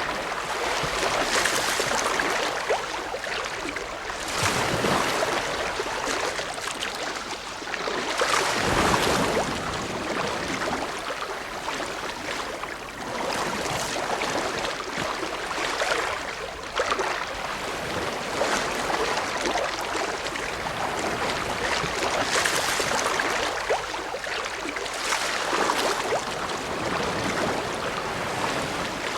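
Ocean waves washing in and breaking, a continuous rush of surf that swells every few seconds.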